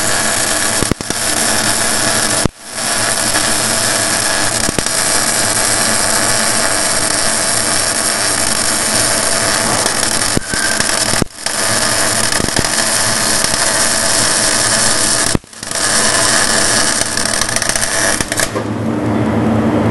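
MIG welder's arc running in a long, steady, loud hiss. It cuts out sharply and restarts a few times as the arc breaks and restrikes, and stops near the end.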